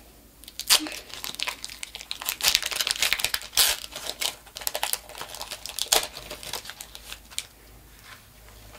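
Foil booster-pack wrapper of Pokémon cards crinkling and tearing as the pack is torn open by hand, in irregular crackles with a few sharp snaps. It is busiest in the first half and dies down after about seven seconds.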